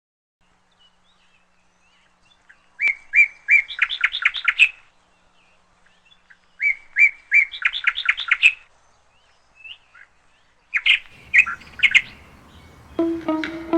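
A songbird singing the same phrase twice, each time a few separate notes that speed up into a fast trill, then a shorter burst of song. Plucked-string music comes in right at the end.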